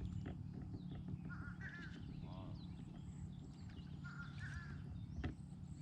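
Birds calling: a short call phrase given twice, about three seconds apart, among scattered faint chirps, over a low steady rumble.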